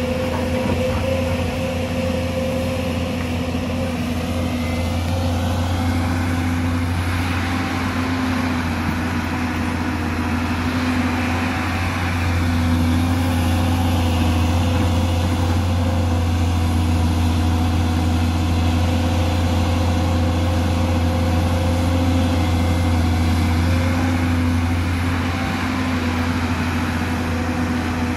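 Hyundai 220LC crawler excavator's diesel engine running steadily under working load, with a higher hydraulic whine that rises a few seconds in and holds through the middle as the boom and bucket dig and swing. The engine is a little louder through the middle.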